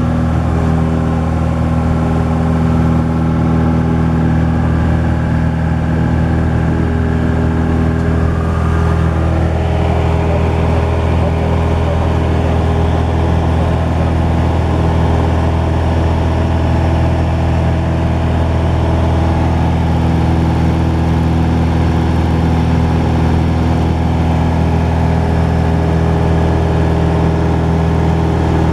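Cessna 172's piston engine and propeller droning steadily in cruise flight, heard inside the cabin. One steady tone in the drone drops away about eight seconds in while the rest holds even.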